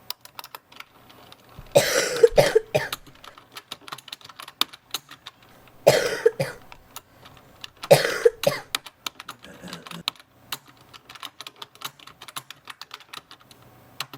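A person coughing in three bouts of several coughs each, about two, six and eight seconds in, over steady light irregular clicking.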